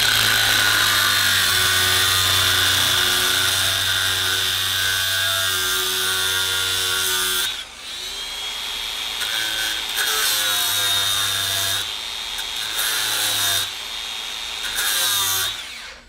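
Angle grinder with a cutoff wheel cutting into the crimped ferrule of a hydraulic hose fitting: a steady high whine with gritty grinding for about seven and a half seconds. After that the grinder runs lighter, its pitch dipping and rising as the wheel goes on and off the work, and it stops just before the end.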